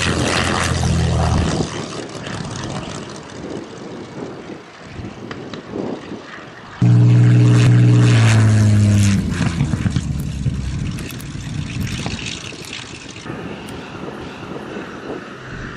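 Spitfire's Rolls-Royce Merlin V12 engine throttled back on landing. A low engine drone fades in the first couple of seconds. About seven seconds in, the engine comes in suddenly loud and steady for about two seconds, then drops in pitch and fades.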